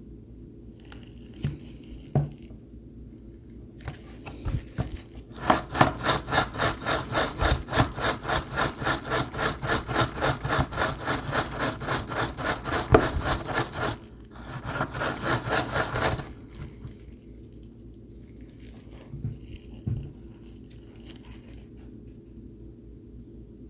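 Rapid back-and-forth rubbing strokes, about three to four a second, lasting roughly nine seconds, then a second short run of strokes. A few scattered knocks come before and after, over a steady low hum.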